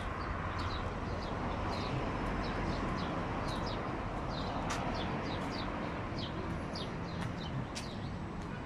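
Small birds chirping: many short, high chirps a few times a second, over a steady hum of road traffic.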